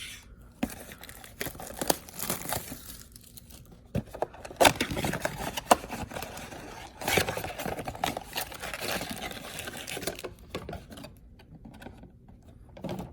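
Plastic wrapping on a trading card box and its packs crinkling and tearing as it is opened, with scattered clicks and scrapes from handling. The handling is busiest in the middle and quieter near the end.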